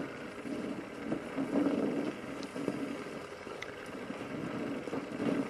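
Oxy-acetylene welding torch flame burning steadily on the metal: a continuous rushing hiss that swells and eases a little, with a couple of faint ticks in the middle.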